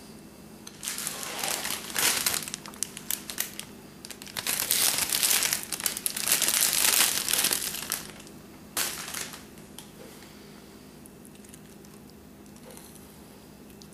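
Clear plastic bag crinkling loudly as it is handled and a snack pulled out of it, in a run of rustling bursts that stops about nine seconds in.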